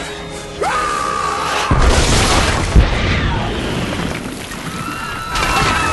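A large explosion: a sudden deep boom a little under two seconds in, with a second sharp blast about a second later, then a long rumble that slowly dies away.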